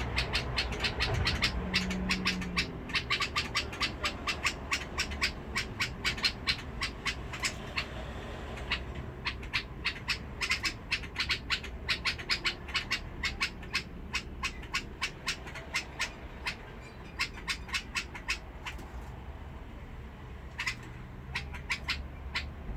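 White-eared bulbul (Basra bulbul) calling in long runs of short, sharp, harsh notes, a few a second, with a brief pause near the end.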